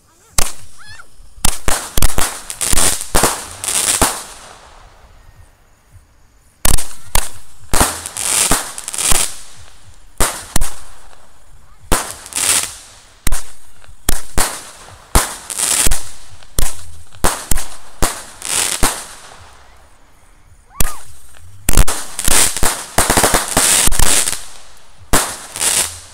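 Fireworks launched from the ground, shooting one shot after another into the sky: a run of loud, sharp bangs, at times several a second, each with a short echoing tail, broken by two brief lulls.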